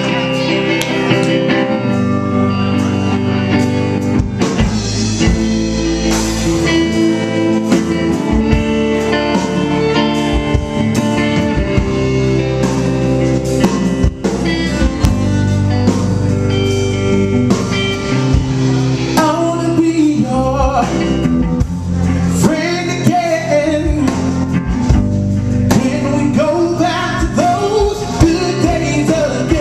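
Blues-rock band music with electric guitar and drums; a singing voice comes in about two-thirds of the way through.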